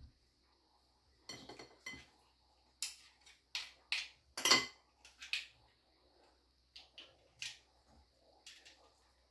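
Kitchen utensils and dishes clinking and knocking: a dozen or so separate, irregular strikes, the loudest about halfway through.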